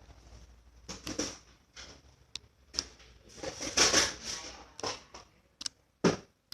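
Slime being handled by hand, squeezed and poked, giving irregular sharp clicks and short crackling bursts, the longest about four seconds in.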